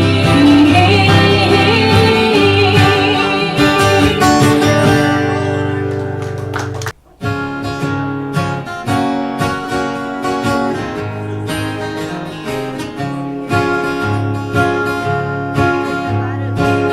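Acoustic guitar and a last held sung note close out a song, fading for several seconds before cutting off abruptly about seven seconds in. After a brief gap, acoustic guitar starts picking and strumming the intro of the next song.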